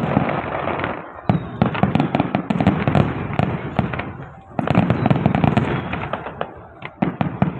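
Fireworks going off in rapid volleys: dense crackling bangs that swell up twice, about a second in and again past the halfway mark, each dying away.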